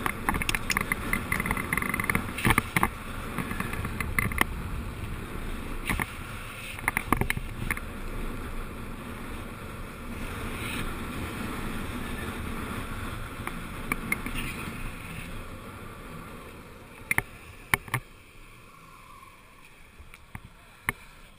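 Urethane skate wheels rolling fast on asphalt under a lying-down downhill rider, with wind rushing over the helmet camera and scattered sharp clacks over road bumps. The rolling noise fades near the end as the board slows to a stop.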